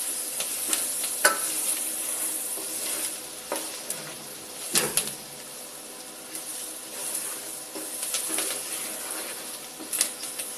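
Pork belly pieces and vegetables sizzling in a pot while a wooden spoon stirs them, with occasional scrapes and knocks of the spoon against the pot, the loudest about halfway through.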